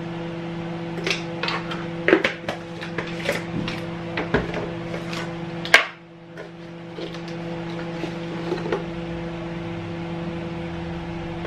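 A metal spoon scooping powdered bouillon out of plastic jars and tapping against a glass blender jar, with scattered clicks of jars and lids being handled and one sharp click about six seconds in. A steady low appliance hum runs underneath.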